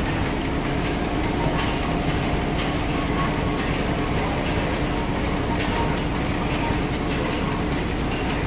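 Stationary steam engine running steadily, with steam escaping in an even hiss around its moving parts.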